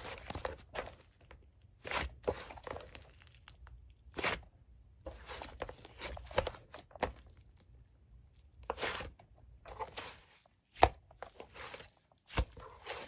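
Slime being squished and pressed by hand, giving separate crackling, popping squelches every second or two, with a sharp click near the end.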